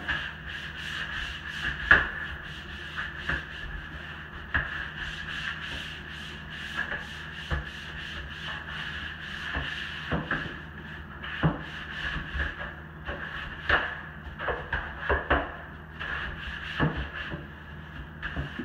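Long-handled scrub brush scrubbing a shower wall: repeated rubbing strokes with a few sharp knocks of the brush against the wall, the loudest about two seconds in, over a steady hum.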